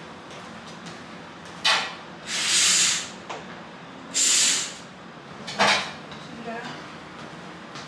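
Curtains drawn along their track: a sharp clack, two sliding swishes of the runners, each under a second, then another clack.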